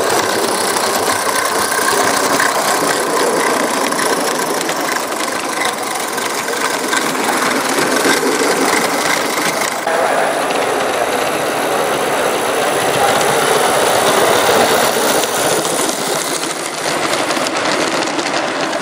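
Gauge one live steam locomotive running on model track: a steady hiss of steam with a fast rattling clatter from its motion and small wheels. About halfway through, the sound shifts to a train of small wagons rolling past close by, their wheels clicking and rattling over the rails.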